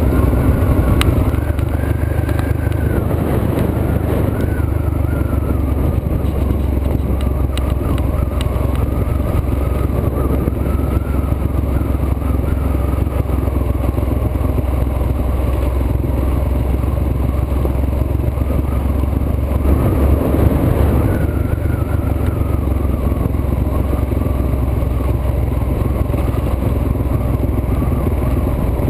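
Trail motorbike's engine running while riding a gravel dirt road, its pitch rising and falling repeatedly with the throttle over a steady low rumble. It swells louder for a moment about two-thirds of the way through.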